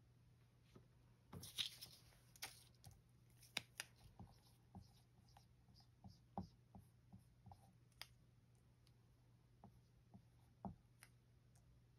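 Faint dry-erase marker tapping and scratching on a whiteboard in short separate strokes. A brief papery rustle comes a little over a second in, as a paper note is put up on the board.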